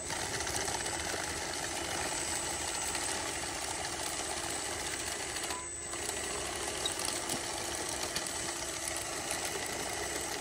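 Toy RC crawler bulldozer running: its small electric drive motors and gearboxes give a steady whirring rattle as it pushes dirt. The sound dips briefly a little past halfway, then carries on.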